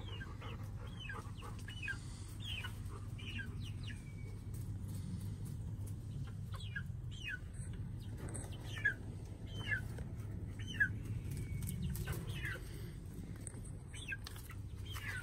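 Two-month-old chicks peeping: short, high, falling chirps about once or twice a second, pausing briefly in the middle, over a low steady rumble. A few sharp clicks come in the second half.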